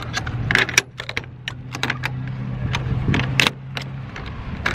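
Metal clicks and clacks of a combination padlock being hooked through the hasp of a trailer door's steel lock bar, snapped shut and its dial turned. A steady low hum runs underneath and stops about four seconds in.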